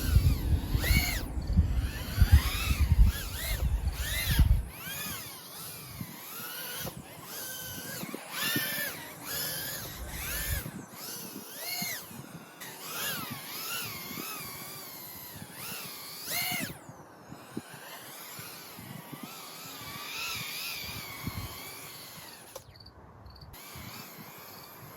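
Brushless motors of a 1S tiny whoop FPV drone whining, the pitch swooping up and down again and again as the throttle changes in flight. A low rumble runs under the whine for the first four seconds or so.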